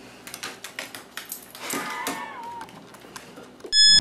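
Scattered light clicks and rattles, then a short whine that drops in pitch about two seconds in. Just before the end comes a loud electronic beep that cuts off abruptly.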